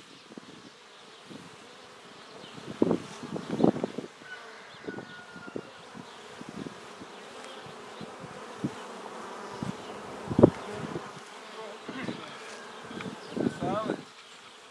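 Honeybees buzzing around the hives, with single bees flying close past the microphone so their buzz rises and falls in pitch. Several short low thumps, the loudest about ten seconds in.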